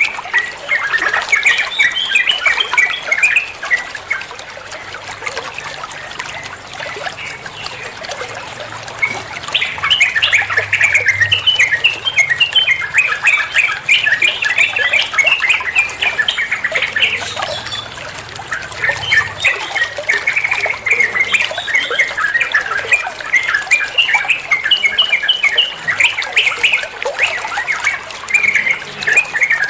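Yellow-vented bulbul (trucukan) singing a long, fast run of chattering, bubbling notes: the rapid 'ropel' song style used as a master recording for training caged birds.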